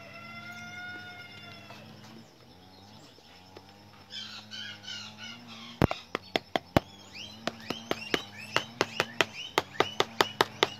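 A knife striking whole roasted guinea pigs on a metal tray in sharp, repeated chops. The chops start about six seconds in and quicken to two or three a second. Birds chirp throughout, a held pitched call sounds in the first two seconds, and a steady low hum runs underneath.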